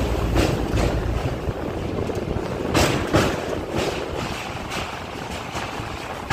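Passenger express train running across a steel truss bridge, heard from the open coach doorway: a steady rumble and rattle of the train on the bridge track, with wind on the microphone and a series of short whooshes as the truss members pass close by, the loudest about three seconds in.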